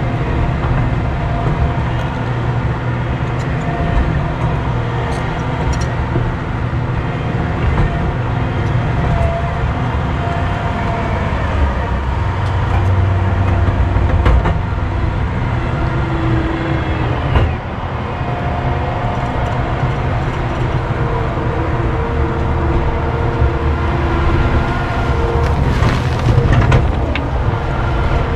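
Excavator's diesel engine running steadily under work, with tones that rise and fall in pitch now and then. There is a brief dip in level about two-thirds of the way through, and a few sharp knocks near the end.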